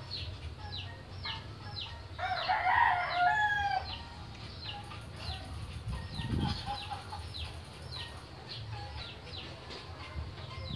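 Chickens calling: short high peeping chirps that fall in pitch, repeating about twice a second, with a louder, longer call from about two to four seconds in.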